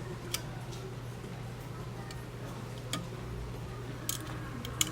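A few sharp, irregularly spaced clicks of kitchen utensils against cookware, over a steady low hum.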